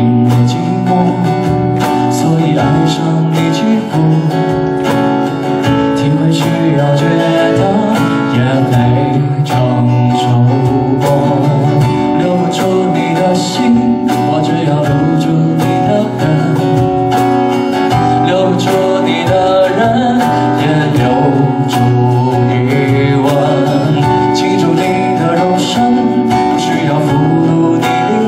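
Acoustic guitar strummed to a steady beat of sharp percussive hits, playing live song accompaniment.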